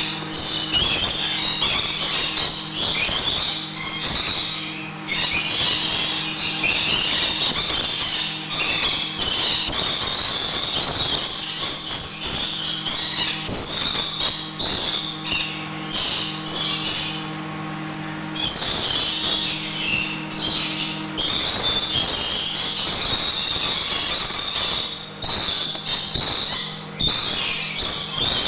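A group of lorikeets chattering and screeching in quick, overlapping bursts, over a steady low hum that stops about three quarters of the way through.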